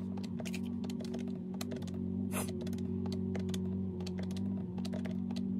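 Plastic keys of a round-button desk calculator tapped in rapid runs, several clicks a second, as a column of figures is keyed in.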